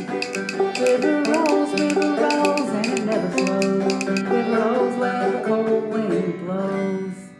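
Clawhammer banjo playing the closing bars of an old-time tune, with sharp plucked notes and held tones. The playing stops about seven seconds in.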